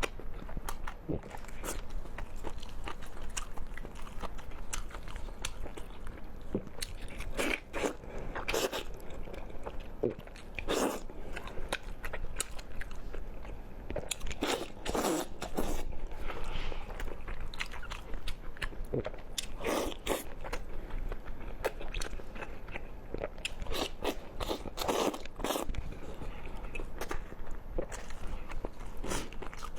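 A person eating: crunching bites and chewing. Louder crunches come in irregular clusters every few seconds, with quieter chewing between them.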